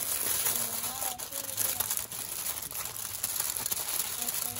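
Aluminium foil crinkling and crackling as hands fold and press it around a parcel of food.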